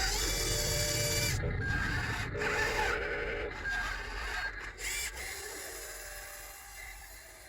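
Small electric motors and gearboxes of radio-controlled construction models whirring and whining in short runs, fading down over the last couple of seconds.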